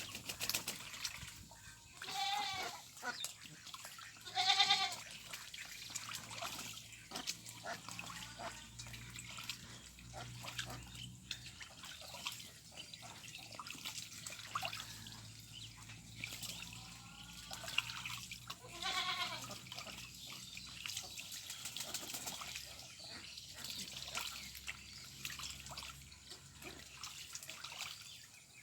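Ducks quacking now and then, with a few louder calls standing out, over continual small splashes and dabbling in the water.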